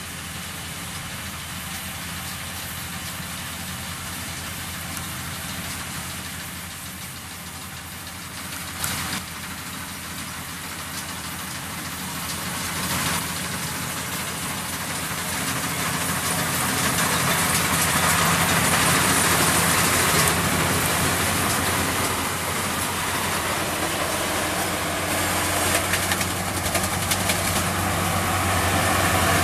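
Combine harvester engine running steadily, growing louder about halfway through, with a short clatter about nine seconds in.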